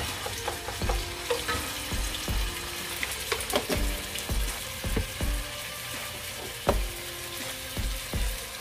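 Minced garlic sizzling in hot oil in a nonstick frying pan, stirred with a wooden spoon. Background music with a steady beat plays over it.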